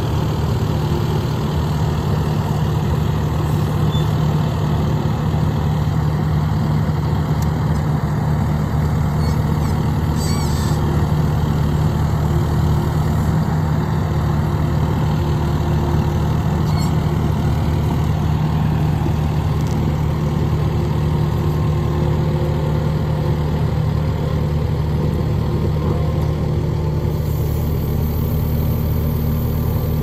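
Kubota SVL75-2 compact track loader's diesel engine running steadily at a constant speed while the machine maneuvers.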